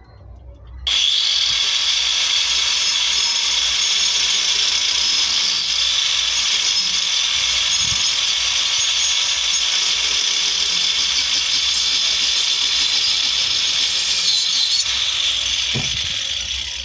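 A power tool running steadily on wood, a loud, hissy whine that starts abruptly about a second in and stops near the end.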